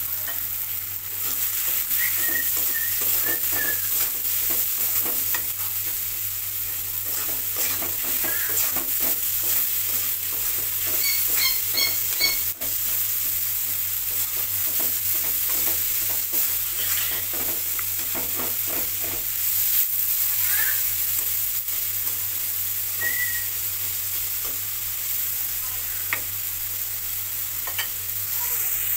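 Sliced onions frying in oil in a metal kadai: a steady sizzle, with the spatula repeatedly scraping and knocking against the pan as the onions are stirred toward browning.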